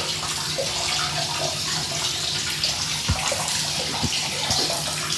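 Running water splashing steadily in a small tiled bath, with a few soft low plops.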